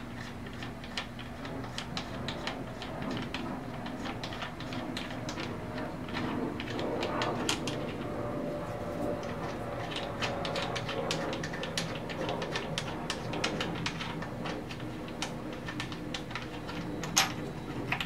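Hepco & Becker hand guard mounting hardware clicking and tapping against the motorcycle's handlebar clamp as it is fitted by hand: many small irregular clicks, with one sharper click near the end. A low steady hum runs underneath.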